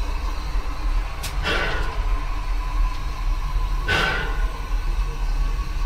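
1910 Vulcan 0-4-0 narrow-gauge steam locomotive under way, heard from the cab: a steady low rumble with two sharp bursts about two and a half seconds apart, like someone hitting a snare drum.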